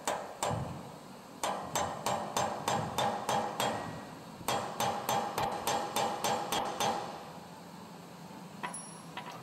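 Hammer tapping a screw extractor into a drilled-out broken stud in the end of an engine crankshaft. The sharp metallic strikes ring and come about three a second in two runs with a short pause between, stopping a couple of seconds before the end.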